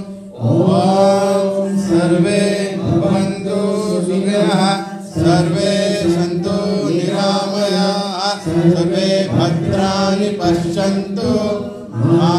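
Voices chanting a Sanskrit mantra in a steady, sustained recitation, in phrases of a few seconds each separated by short pauses for breath.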